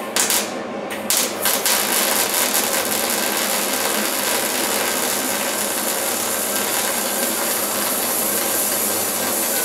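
MIG welder arc crackling as plug welds are laid in the underside of a car body. Two short bursts come in the first second and a half, then a steady, continuous crackle.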